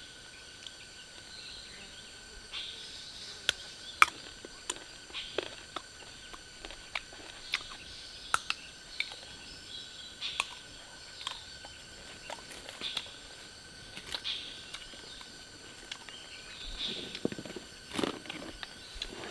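Forest ambience: a steady insect buzz with birds chirping. It is broken by irregular sharp clicks and snaps, with rustling near the end.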